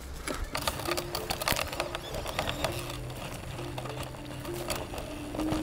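Electric mountain bike rattling over a rough dirt trail, a fast run of clicks and knocks, with background music playing a simple stepping melody.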